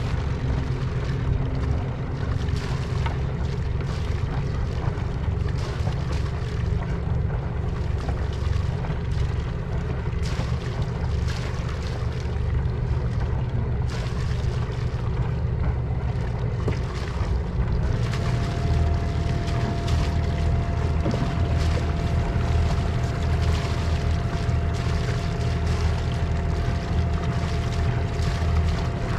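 Beneteau First 36.7 sailboat's inboard diesel auxiliary engine running steadily as the boat motors out of its slip. About 18 seconds in the engine note changes and a steady higher whine joins it.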